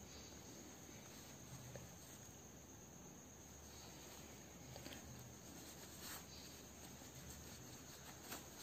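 Near silence: a faint steady hiss with a thin high whine, and a few faint soft ticks as fabric and a safety pin are handled.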